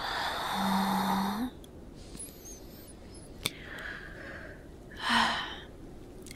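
A woman's long, breathy, contented sigh with a hummed note that lifts at its end. Soft breaths and a small click follow, then a short breathy sigh about five seconds in.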